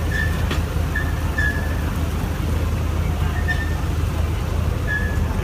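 Off-road 4x4's engine running under load with a steady low rumble as it crawls out of a deep mud rut. Short, high chirps come and go over it several times.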